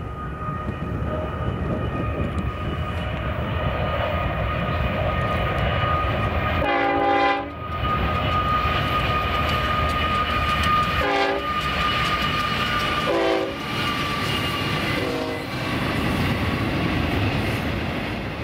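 Union Pacific double-stack container train passing, its cars rolling by with a steady low rumble and a steady high squeal. A train horn sounds four short blasts in the middle, the first the longest.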